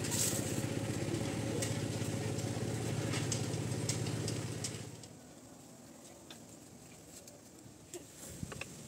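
A small engine running steadily, fading out about five seconds in. Near the end come faint scattered crackles and ticks from the cane-waste furnace fire.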